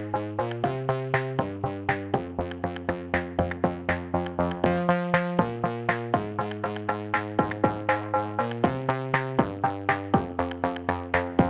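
Electronic background music with a steady beat of about four notes a second over sustained chords that change every second or two.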